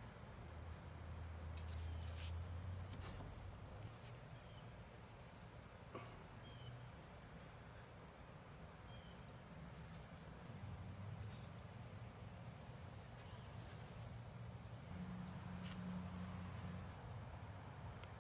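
Faint outdoor ambience: a steady high insect drone over a low rumble, with a few light clicks and taps as meat is hung on the smoker's wire racks.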